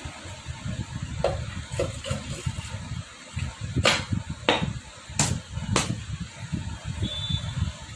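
Sharp metal knocks and clacks as the clutch cover of a TVS Star City 110 engine is set onto the crankcase over its gasket and knocked into place, about six in all, the loudest between about four and six seconds in, over a steady low rumble.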